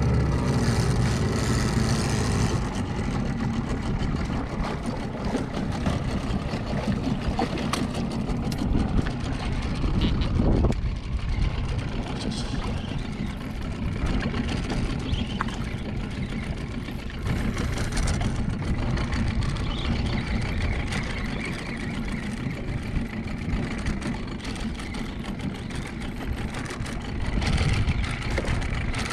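Outboard motor running steadily on a small fishing boat.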